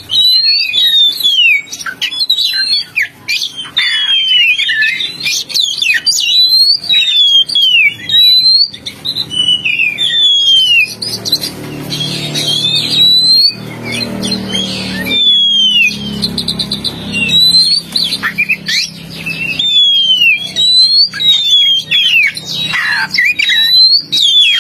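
Magpie-robin (kacer) song: a rapid, continuous run of loud whistled notes that slide up and down, mixed with short harsh chatter, as used for a lure call.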